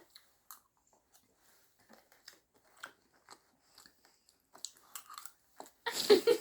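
Faint, sporadic eating sounds, with chewing and small crunches and clicks, as people eat dinner in a small room. Voices start up near the end.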